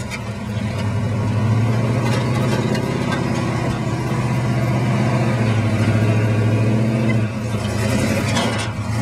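Engine of a lifted 1966 Chevrolet pickup pulling hard under load as the truck climbs a steep sandy hill. It is a steady low engine note that gets louder about a second in and eases a little about seven seconds in.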